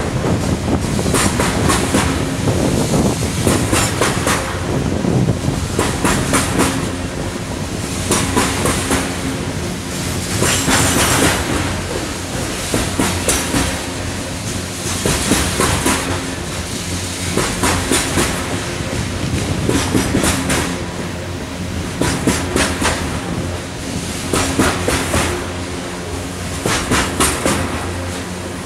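Freight train of coal hopper cars rolling past, its steel wheels clacking over the rail joints in quick clusters of clicks roughly every two seconds as each car's trucks pass, over a steady rolling rumble.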